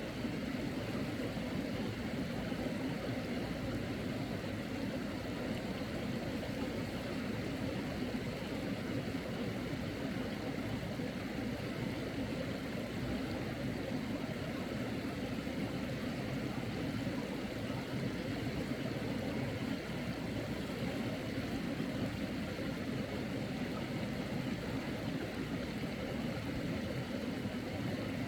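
Steady rushing of a clear mountain stream's running water, unbroken and even throughout.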